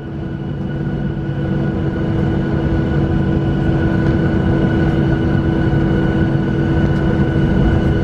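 Boeing 737-800's CFM56 jet engines spooling up toward takeoff power, heard from inside the cabin: a steady jet roar with a droning hum and a thin whine, growing louder over the first couple of seconds and then holding.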